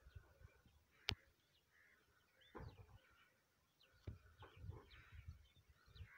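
Faint rural ambience: scattered small bird chirps, a single sharp click about a second in, and soft low thumps and rumbles on the microphone.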